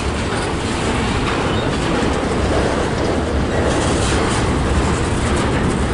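Freight cars of a slow-moving CSX mixed freight train rolling past, a steady noise of steel wheels running on the rails.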